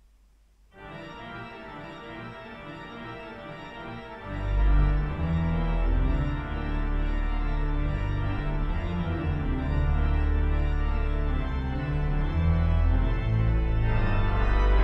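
Leeds Minster's pipe organ begins playing about a second in, softly, with sustained chords. About four seconds in, deep bass notes come in and the organ grows much louder, holding full sustained chords.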